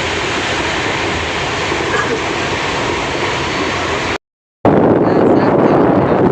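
Steady running noise of a passenger train heard from inside the coach. About four seconds in it cuts out for a moment, then returns louder.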